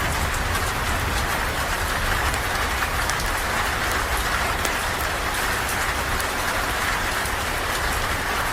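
Steady rain falling under a porch roof: a continuous, even hiss with many scattered sharp ticks of drops.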